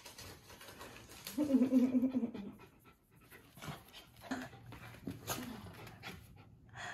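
Two Jindo mix dogs play-wrestling: panting and light scuffling of paws on the mat, with one short steady-pitched vocal sound lasting about a second, starting about a second and a half in.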